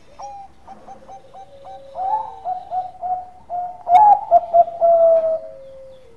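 Zebra dove (perkutut) cooing: a run of short, quick coos that grow louder about two seconds in and peak around four to five seconds, ending on a longer drawn note, with a fainter, lower coo underneath early on. A sharp click about four seconds in.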